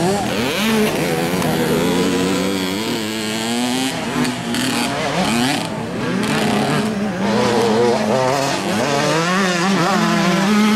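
Several 50cc two-stroke mini motocross bikes, including a KTM 50, racing together over jumps. Their overlapping engines rev up and down as the throttles open and close.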